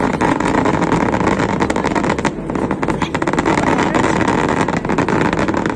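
Fireworks display going off: a dense, continuous crackle of many small bursts with a steady rumble underneath.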